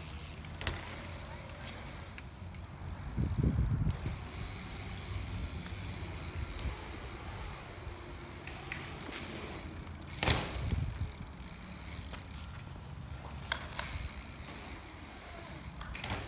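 BMX bikes rolling over dirt and concrete, tyres rumbling steadily with two louder swells. A sharp clack about ten seconds in, and a few smaller knocks later.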